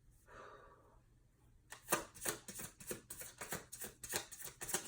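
Tarot cards being shuffled by hand, starting about two seconds in: a run of quick soft slaps and riffles, several a second.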